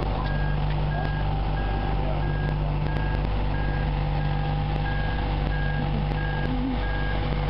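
Marine travel lift running, its engine humming steadily under a motion warning alarm that beeps evenly, about three beeps every two seconds.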